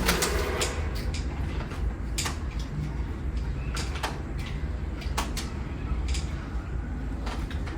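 Irregular light clicks and knocks of plastic wall hooks and a hanging decoration being handled and fixed to a wall, over a steady low hum.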